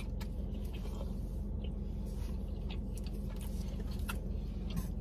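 Steady low hum in a car's cabin, with a few faint, short clicks scattered through it.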